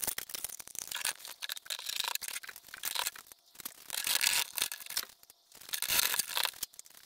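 Irregular scraping, rustling and small metal clicks from hands fitting a chrome side mirror and its steel mounting bracket to a truck door with a screwdriver, pausing briefly twice.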